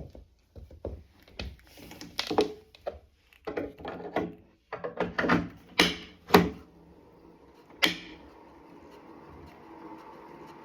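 Irregular knocks and clunks of handling on a Wahoo KICKR Bike Shift indoor smart bike. About eight seconds in, a quiet steady whir from the bike starts and slowly grows.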